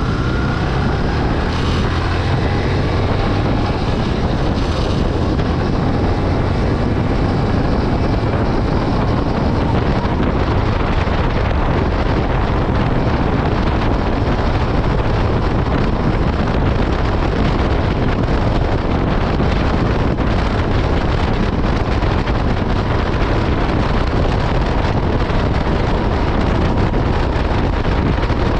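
Yamaha Byson FZ16's single-cylinder four-stroke engine running steadily through its stock exhaust, under heavy wind noise on the microphone.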